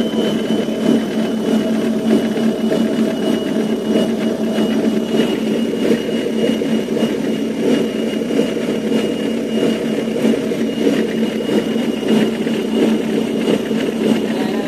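Tugboat's diesel engine running steadily under heavy power, with a thin, steady high whine over it.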